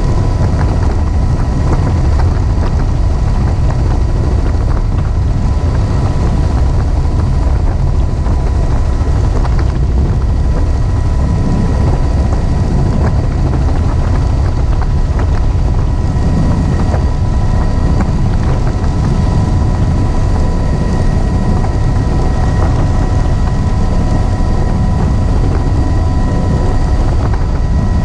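Helicopter in flight heard from inside its doors-off cabin: steady, loud rotor and engine noise with a few thin, steady high tones running through it.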